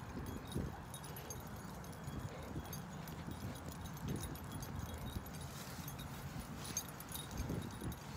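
Footsteps while walking, with rustling and handling noise from a handheld phone and a few faint clicks.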